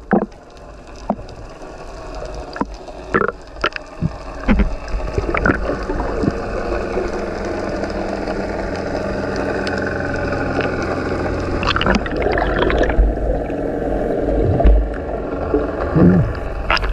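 Muffled water noise heard with the camera under the sea surface: a steady rushing hum that swells a few seconds in, with a droning tone and scattered clicks and knocks.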